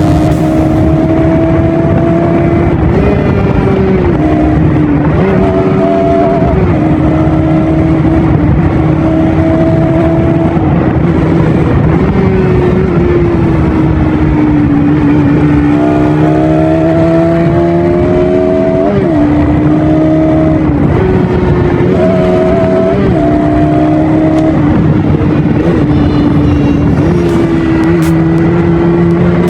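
Bajaj Pulsar NS200's single-cylinder engine through its stock exhaust, running at a steady note with short rises in pitch every few seconds.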